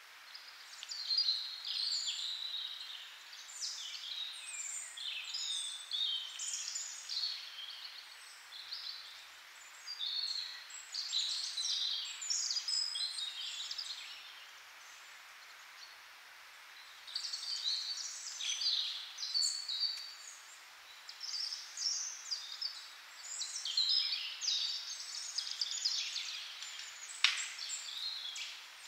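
A Eurasian red squirrel gnawing and chewing a walnut in its shell: quick, irregular scraping and crunching in bursts. There is a pause of a few seconds about halfway through and one sharp click near the end.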